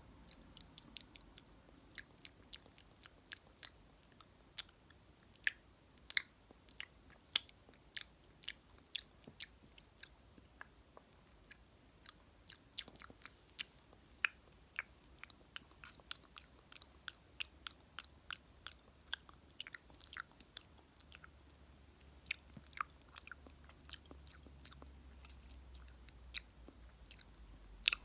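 Close-miked ASMR mouth sounds: wet lip smacks and kissing clicks, short and irregular, some much louder than others.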